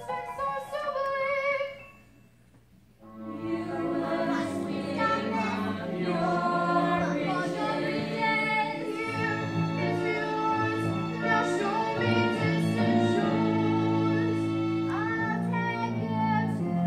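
Live stage-musical singing: a single wavering voice holds a short phrase and stops, then after a brief pause the cast sings together over a low sustained accompaniment.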